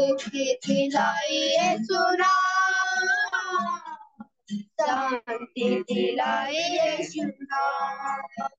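A voice singing a slow melody, holding long notes about two to three and a half seconds in.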